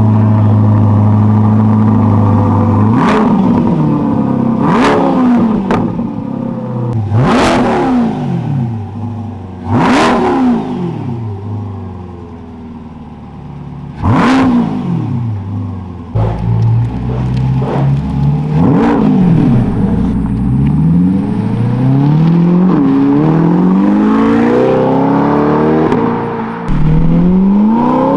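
C8 Corvette V8 running through a newly installed Paragon aftermarket exhaust: idling steadily, then revved again and again, the pitch climbing and falling with each blip. Several sharp cracks stand out at some of the revs.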